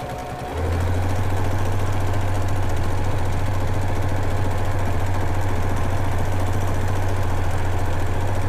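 Domestic sewing machine stitching free-motion quilting: a steady motor hum with fast, even needle strokes. It picks up to full speed about half a second in and holds there.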